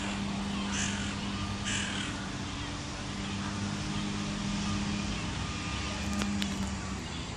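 A crow cawing, three calls about a second apart in the first two seconds, over a steady low hum of city traffic.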